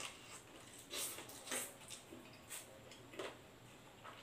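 Faint close-up chewing and mouth sounds of someone eating fried chicken with the hands: a few soft smacks and clicks, about half a second to a second apart.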